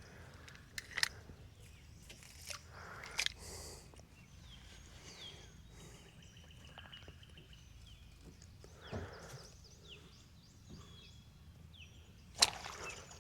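Quiet creek ambience with faint bird chirps, scattered light taps and knocks, and one sharp knock near the end.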